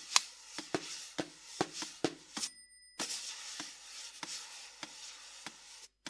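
Drumsticks tapping and scraping on a cloth-covered snare drum with a metronome standing on its head. Irregular dry taps sound over a hiss, breaking off briefly about halfway through and again just before the end.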